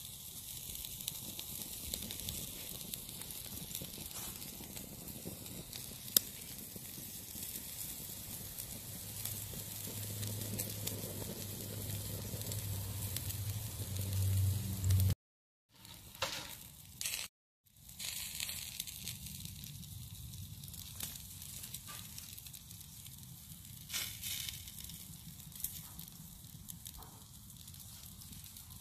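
Dry-aged Wagyu ribeye sizzling over a wood fire: a steady hiss of fat cooking, with the fire's scattered crackles and one sharp pop. A low rumble builds past the middle, and the sound drops out twice briefly.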